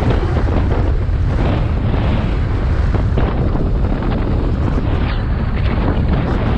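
Loud wind buffeting on the microphone of a moving motorcycle, a dense rumble with scattered crackles, with the BMW R 1250 GS's boxer-twin engine running underneath.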